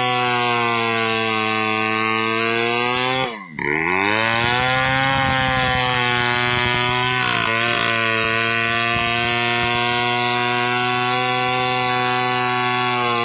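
Two-stroke chainsaw running at high revs while it saws hard damar laut ironwood. Its pitch wavers slightly under the load. About three and a half seconds in, the engine sound briefly drops away and falls in pitch, then picks back up.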